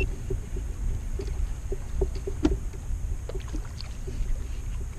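Fishing kayak moving on calm water: a steady low rumble with light water noise along the hull and scattered small clicks and knocks from the boat.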